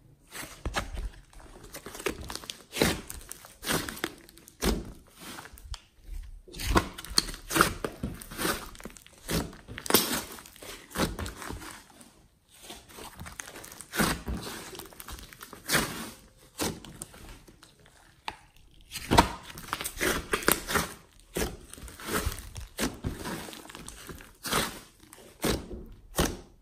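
Hands squeezing, pressing and pulling apart a large lump of thick slime mixed with clay and glitter, making irregular bursts of sticky crackles, pops and squelches.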